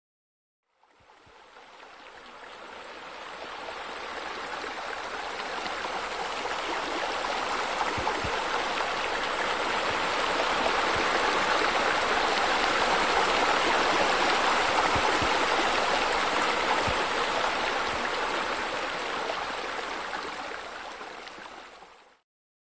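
Steady rushing and splashing of water from pool fountains and spillways. It fades in over the first few seconds, is loudest around the middle and fades away near the end.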